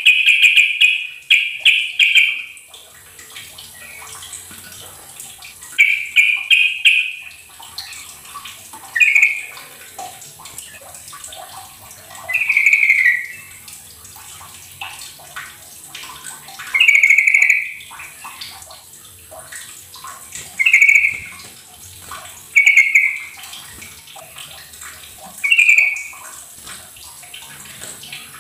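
Yellow-vented bulbul singing: short, bubbling, chattering phrases repeated about nine times, with gaps of a few seconds between them.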